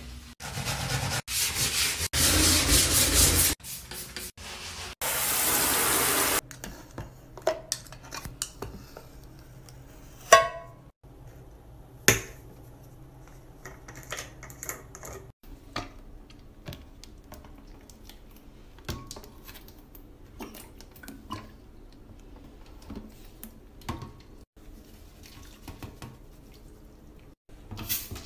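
Household cleaning sounds: loud scrubbing in several stretches for the first six seconds or so, then quieter handling of plastic cleaning bottles with scattered clicks and taps as a cap is opened.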